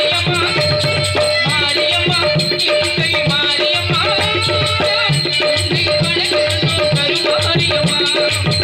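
Live Tamil stage-drama music: a hand drum beating a steady, fast rhythm under a wavering melody line.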